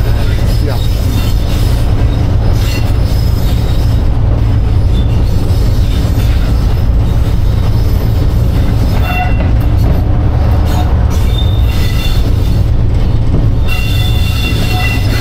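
Class 47 diesel locomotive heard from inside its cab: its Sulzer twin-bank diesel engine running with a loud, steady low rumble, and thin high squeals that come and go above it, clearest near the end.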